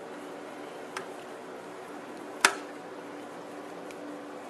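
Screwdriver working on the screws of an HEI distributor cap's coil cover: a faint click about a second in and one sharp click about two and a half seconds in, over a steady low room hum.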